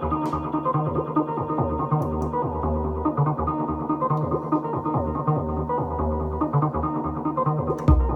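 Electronic jam on analog synthesizers: a sequenced synth bass line repeating short pitched notes under held synth tones. Near the end a drum machine's kick and hi-hats come in, and it gets louder.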